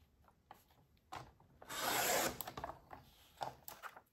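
Sliding-blade paper trimmer cutting the folded edge off a stack of folded paper: one short scraping stroke of the blade carriage along its rail about two seconds in, with a click just before it and a few light taps afterwards.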